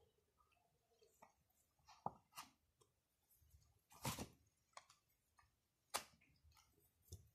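Mostly quiet, with a few soft rustles and light clicks of hands working a needle and thread through fabric, the longest and loudest about four seconds in and another near six seconds.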